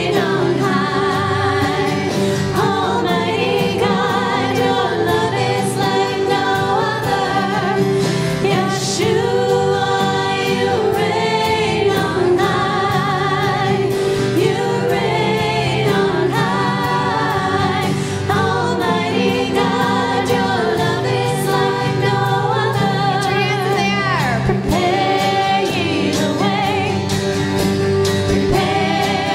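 Worship song sung by several voices over steady instrumental accompaniment, with long held, wavering notes.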